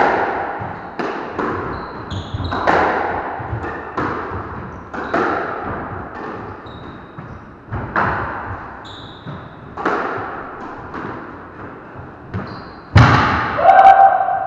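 Squash rally: the ball cracks off the rackets and the walls about once a second, each hit ringing out in the enclosed court, with short squeaks of shoes on the wooden floor; the two loudest hits come near the end.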